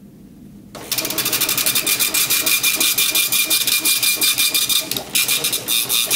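Star Micronics SP747 dot-matrix impact receipt printer printing: the print head hammers out a fast, buzzing rattle as the paper feeds. It starts about a second in and breaks off briefly about five seconds in.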